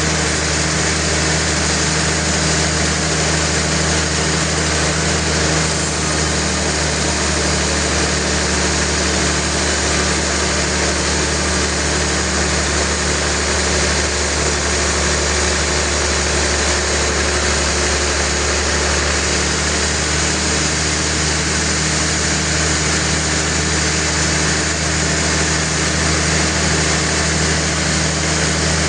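Sawmill machinery running steadily: a constant engine hum under a dense, even mechanical whir, with no breaks or sudden knocks.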